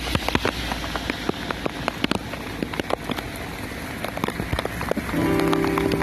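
Heavy rain with many separate drops tapping close by on a hard surface. About five seconds in, a steady low hum joins it.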